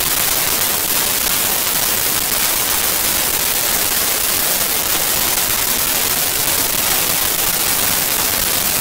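Steady, loud hiss of white noise, like static.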